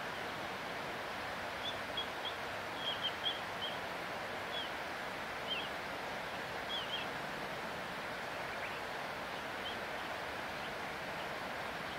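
Short, high bird chirps, a dozen or so, mostly in the first half, over a steady, even outdoor rushing noise.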